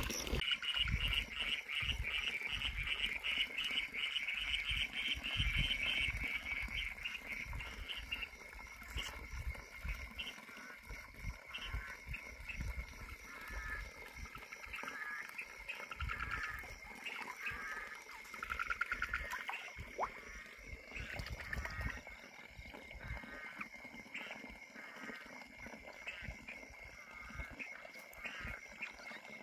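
Frogs calling at night: runs of short, rapidly pulsed calls repeat over a steady high-pitched trill, with low knocks and rumble in the first half.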